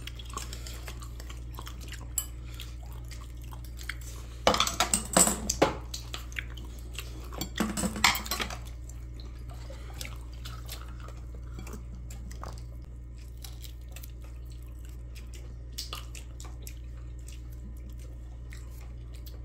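Cutlery and dishes clinking at a meal table: scattered light clicks, with busier clatters about four to six seconds in and again around eight seconds, over a steady low hum.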